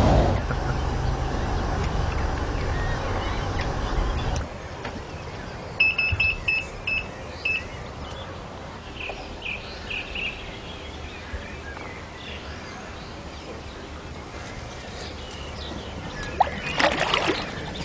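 Outdoor ambience: a low rumbling noise for the first four seconds, then a quick run of about six short, high, even-pitched beeps, a few scattered chirps, and some clicks near the end.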